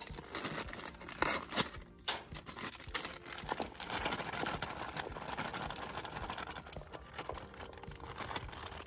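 Crinkling plastic bag of frozen edamame being handled and shaken out, with the pods sliding out onto a plate.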